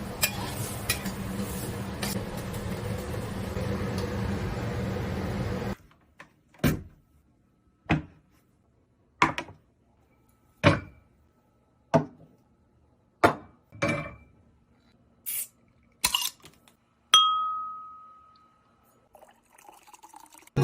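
A steady hiss with a low hum cuts off after about six seconds. Then come about a dozen separate clinks and taps of tableware, roughly one a second, one near the end ringing on with a clear tone.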